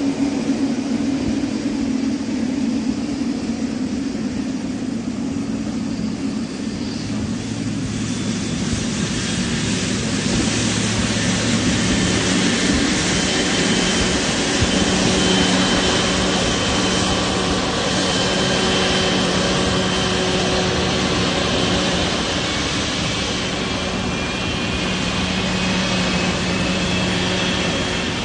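GE90-115B turbofan engine of a Boeing 777-300ER starting up: a steady jet-engine whine and rush that slowly grows louder as the engine spools up, with a faint tone rising in pitch near the end.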